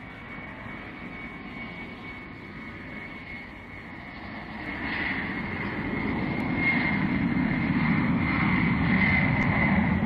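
Boeing 747's four Pratt & Whitney JT9D turbofan engines at takeoff thrust as the airliner lifts off and climbs past: a steady rush of jet noise with a high whine, growing louder about halfway through.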